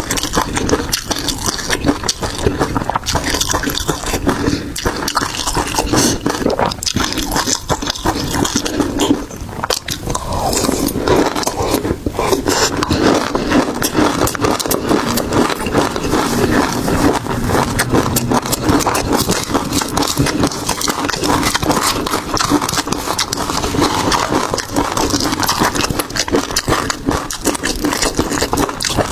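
Close-miked eating of seafood: continuous wet chewing and crunching, a dense crackle of small clicks and smacks.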